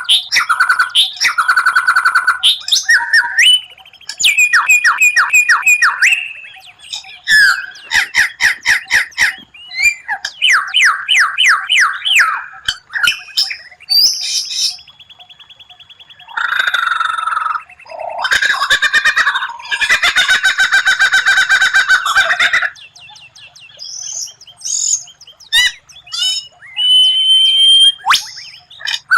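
White-rumped shama (murai batu) singing a long, varied song: fast runs of repeated notes, whistles and harsh buzzy phrases, with short pauses between them.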